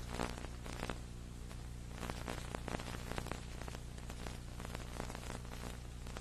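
Crackling static and hiss over a steady low hum: the noise of an old, worn videotape soundtrack, with no clear crowd or commentary above it.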